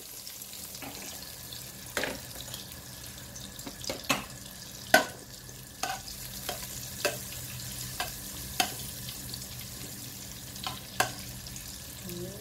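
Butter melting and sizzling gently in an aluminium pot, with a metal spoon stirring it and clinking sharply against the pot at irregular moments, loudest about five seconds in.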